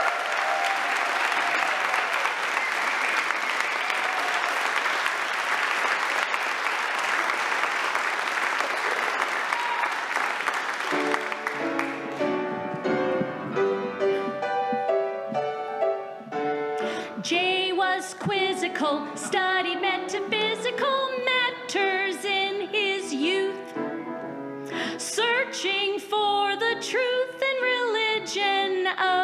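A large audience applauding for about eleven seconds, then a piano introduction starts, and singing over the piano comes in some five seconds later.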